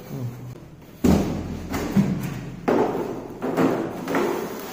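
Cardboard box and plastic-wrapped parts being handled: a heavy thud about a second in, then four more rustling, knocking bursts of handling.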